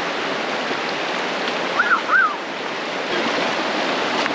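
Fast-running mountain stream swollen with snowmelt, a steady rushing of water. Two short high chirps sound about two seconds in.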